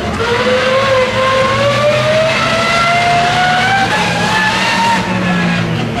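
Toyota HiAce rally van's engine accelerating hard out of a turn, its pitch climbing steadily for about five seconds before it lifts off near the end.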